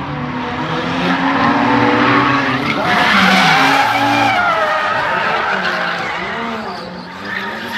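Two drift cars tandem drifting at high revs, engines rising and falling in pitch as the drivers work the throttle, with tyres squealing and skidding. Loudest about three to four seconds in.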